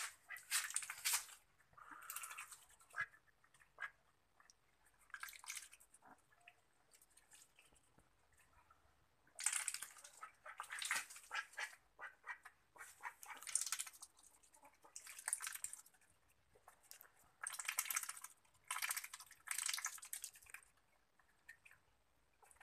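Ducks dabbling in a steel bowl of watery feed: short bursts of rapid, wet, crackly bill-chattering and slurping, about ten of them, with quiet gaps between.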